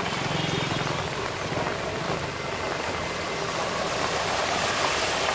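Steady rain on a flooded road with traffic driving through the standing water. An engine runs near the start, and a car's tyres swish and splash through the water near the end.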